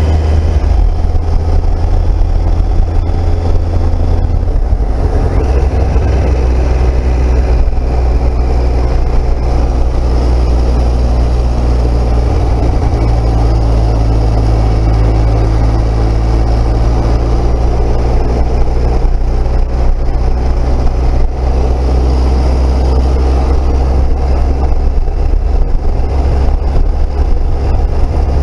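Triumph Speed Triple's three-cylinder engine running under way at road speed, its pitch shifting a few times with the throttle, over heavy wind rush on the microphone.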